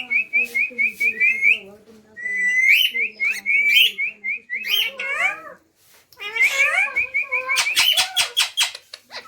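Pet parrot chirping in fast runs of short, high repeated notes, about six a second, mixed with bending squawk-like calls. A quick series of sharp clicks comes about eight seconds in.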